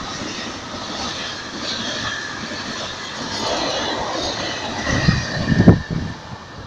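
Freight train wagons rolling past close by: a steady wheel-on-rail rumble with a faint high squeal. About five seconds in, a few loud low thuds come as the last wagons go by, and then the sound falls away as the train moves off.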